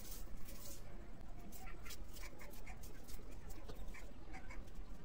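Red onion being cut with a knife held in the hand: scattered small crisp clicks and crunches. Short high animal calls come and go in the background.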